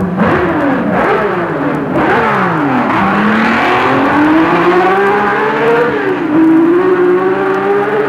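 Lotus Coventry-Climax V8 Formula One engine being revved, its pitch swooping up and down several times in quick succession, then climbing slowly for a few seconds, dipping briefly about six seconds in and climbing again.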